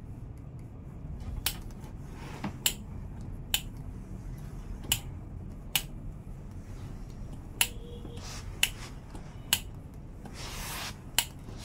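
An electric iron being worked over stitched cotton fabric: a series of sharp, irregular clicks or taps, roughly one a second, with a soft rubbing slide near the end.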